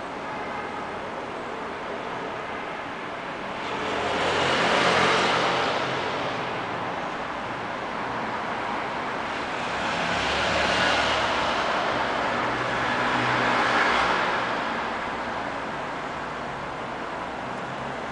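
City street traffic: a steady background of traffic, with vehicles passing below that swell and fade three times, about five seconds in, again around eleven seconds and near fourteen seconds.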